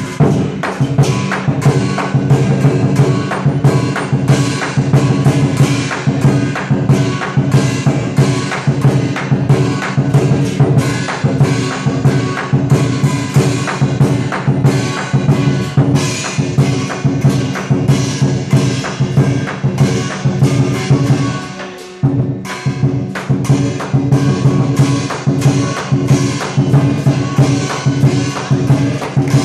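Live lion dance percussion: a large drum beaten in a fast, driving rhythm with gong and cymbal crashes. The playing fades for a moment about three-quarters of the way through, then comes back in at full strength.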